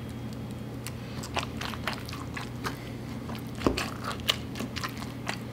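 Wooden spoon stirring a thick, creamy fish dip in a glass bowl: irregular wet squishes and small clicks, over a steady low hum.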